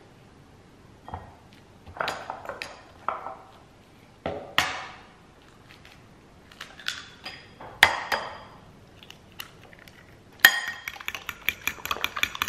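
A metal fork tapping and scraping in a ceramic bowl as banana is mashed, with a few sharper knocks as eggs are cracked. About ten seconds in, the fork starts clicking fast against the bowl as the eggs are whisked.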